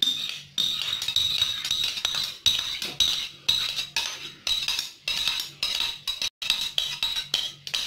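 Metal spoons clinking and scraping against a stainless steel mixing bowl as a liquid marinade is stirred, with many short knocks in an uneven rhythm over a steady high ring.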